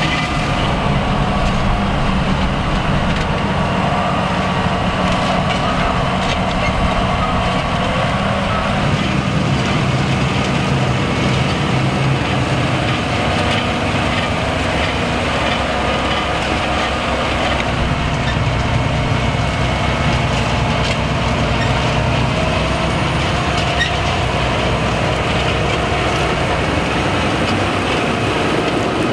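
Claas Xerion 4000 tractor's diesel engine running steadily under load as it pulls a Lemken Azurit precision planter through the soil, with light clatter from the implement.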